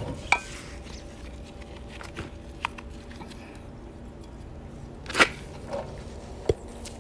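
A few irregular knocks and clicks from a Honda Civic's suspension during a chassis-noise check, with the loudest knock about five seconds in. They come from a shock absorber whose damping has failed, so it no longer rebounds.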